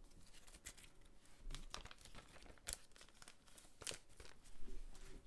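Foil trading-card pack wrapper crinkling and tearing as it is opened and handled, in a series of faint, irregular crackles.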